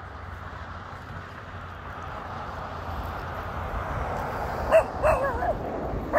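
Steady background hiss, then near the end a dog gives three or four short, high yips with whining bends in pitch as it plays.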